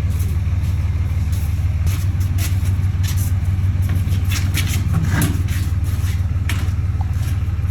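An engine running steadily with a low hum, with short sharp crackles and clicks scattered over it.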